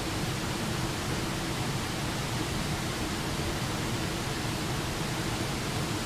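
Small waterfall pouring over a rock ledge into a rocky creek: a steady, even rush of falling and splashing water.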